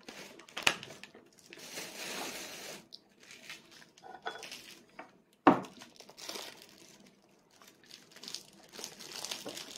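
Crinkling and tearing of a plastic food packet, the nori packet being handled at the table, in bursts of rustling, with two sharp clicks, the louder one about halfway through.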